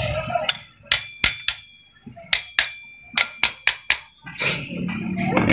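A hammer tapping on the metal parts of a Honda Click 150 scooter torque drive to knock its three locks back into place. About ten sharp metal strikes come in irregular groups, and each rings briefly.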